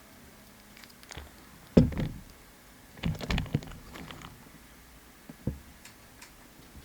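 Small objects being handled and set down on a tabletop: a sharp knock about two seconds in, a quick cluster of taps and clicks around three seconds, then one more tap near the end.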